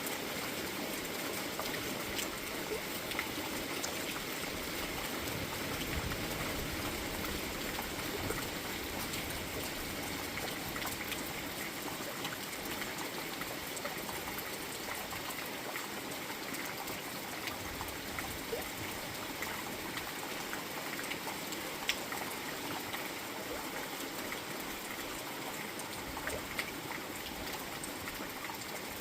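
Steady rain falling, with water trickling and running off, and many small drop ticks scattered through it; one sharper tick stands out about three-quarters of the way through.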